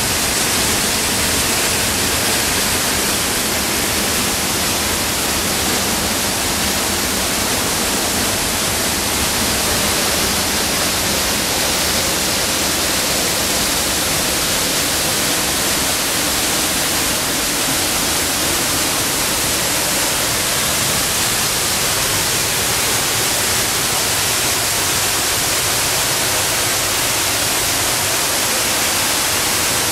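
The Hinterrhein plunging over the Roffla gorge waterfall: a loud, steady roar of falling water, heard close up from the rock gallery behind the falls.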